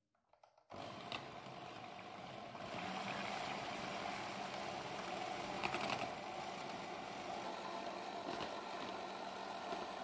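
Electric hand mixer running steadily, its twin wire beaters whipping plant-based cream in a plastic jug until it thickens; the motor starts about a second in, with a few brief clicks near the middle.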